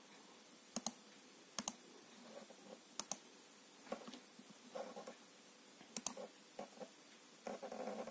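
Scattered clicks of a computer mouse and keyboard: about a dozen short, separate clicks at uneven gaps, four of them sharper than the rest.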